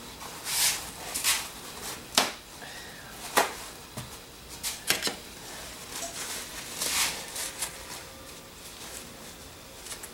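Handling noise from cleaning a tool with a paper towel and lacquer thinner: several short hissy rustles of wiping, plus a few sharp clicks and knocks.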